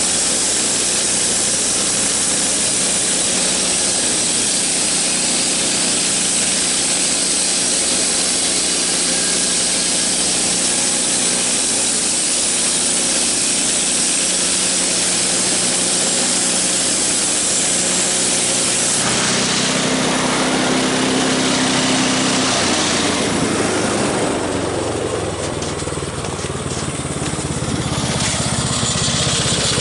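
Homemade bandsaw mill sawing a poplar log, its band blade hissing through the wood over the steady running of its 9.5 hp snowblower engine. About two-thirds of the way through, the hiss of the cut drops away and the engine's hum stands out more.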